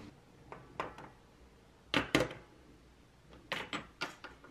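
Glass perfume bottles knocking and clinking as they are picked up and set down on a metal tray: a few light clicks, a louder double knock about two seconds in, and another cluster of knocks near the end.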